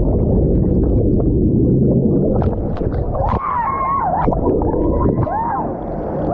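Churning water and bubbles rush against a camera held under the water's surface. From about three seconds in, a woman lets out high, gliding whoops and laughter.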